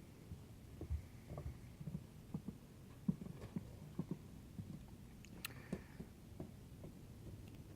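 Faint, irregular low thumps and knocks, with a couple of sharp clicks about five and a half seconds in.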